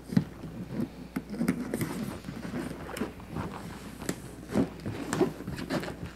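Hands handling and rubbing latex party balloons, a clear 12-inch balloon with red and white balloons inside it, making irregular short rubbing and rustling noises as the balloon necks are worked free for tying.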